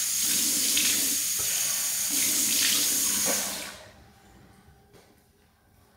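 Bathroom sink tap running while handfuls of water are splashed onto a face to rinse off foaming cleanser, twice. The tap is shut off a little over three and a half seconds in.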